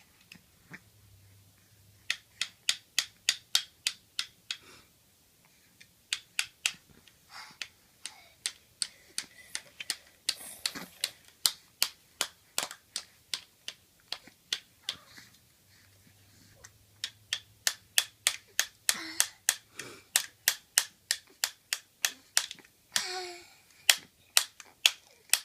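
A plastic toy hammer tapping plastic toy nails and wood pieces, sharp taps about three to four a second, in runs with short pauses between.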